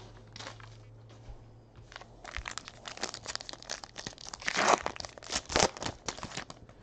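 Trading-card pack wrapper crinkling and tearing as it is handled and ripped open by hand, with irregular rustles and crackles that are loudest about two-thirds of the way in.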